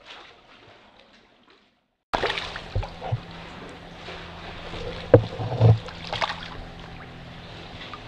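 Water splashing and sloshing as a hooked tautog is hauled to the surface beside a kayak, starting abruptly about two seconds in. There are several sharp knocks, the loudest a little past halfway.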